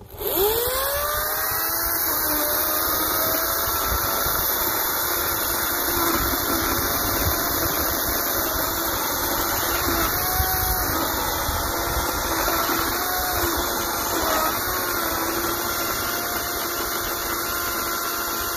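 EGO 56-volt brushless 14-inch battery chainsaw spinning up with a quickly rising whine, then running steadily as it cuts into a log, its pitch wavering with the load.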